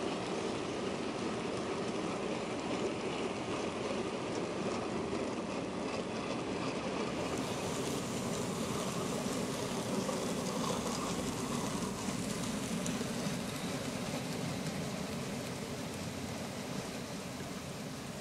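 Train wheels rolling on track: a steady rumbling rattle of wagons running on rails. The sound changes abruptly about seven seconds in, then slowly fades near the end as the train draws away.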